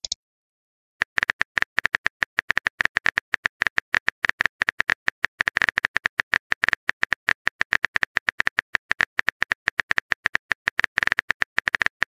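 Phone keyboard typing sound effect: a rapid, even stream of short clicks, several a second, as a text message is typed out letter by letter. It starts about a second in.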